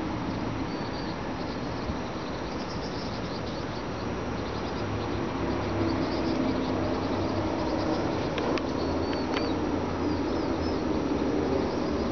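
Small birds chirping, short high calls scattered through, over a steady low rumble of background noise.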